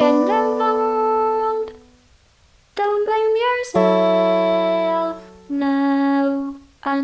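Background music: slow phrases of held notes, some sliding in pitch and some sounding together, broken by short pauses about two seconds in and again near the end.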